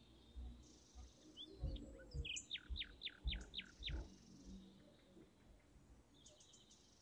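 Faint rasping of a hand nail file on a natural fingernail, with low bumps from handling. A bird sings a run of about six quick falling chirps in the middle.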